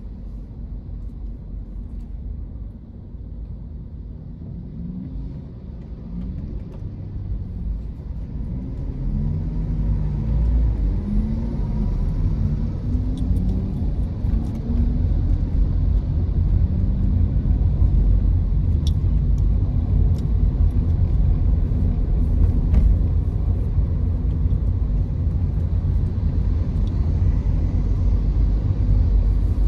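Car on the move: a steady low road and engine rumble that grows louder over the first ten seconds, with a few rising and falling engine tones and scattered light ticks.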